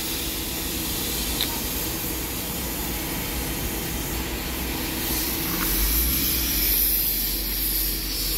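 Shipyard background noise: a steady hiss over a low rumble with a faint machine hum. It grows louder about halfway through.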